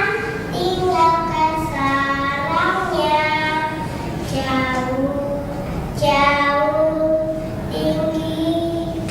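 A child singing solo, holding long notes and moving in pitch between phrases.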